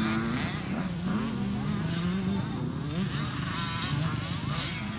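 Motocross dirt bike engines revving, their pitch rising and falling repeatedly as the riders work the throttle over the track's jumps.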